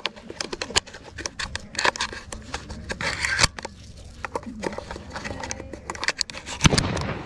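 Shotgun shells being thumbed one by one into a shotgun's magazine tube through the loading port: a series of sharp clicks and metallic scrapes, with rustling of hands and sleeves on the gun.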